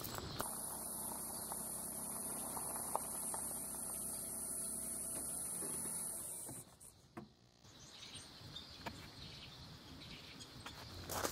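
A steady hum with a thin, high whine above it for about six seconds, cutting off suddenly. After that come faint outdoor ambience and a few soft ticks.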